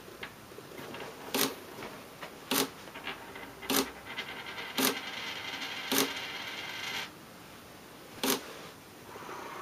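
Sony NEX-5N shutter clicking about once a second, each shot fired by an Arduino IR LED remote. Under the clicks a spinning penny whirs and rattles on the wooden desk from about two seconds in and stops suddenly around seven seconds, as it settles.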